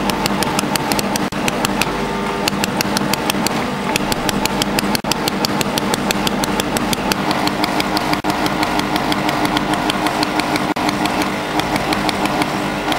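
Pulsed solid-state welding laser firing about five sharp snaps a second, each pulse of 8–10 J fusing 0.8 mm filler wire onto the mould surface in laser cladding, over a steady machine hum.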